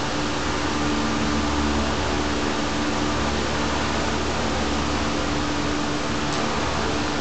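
Steady, even hiss with a low hum and a few faint steady tones underneath, unchanging throughout, with no distinct event.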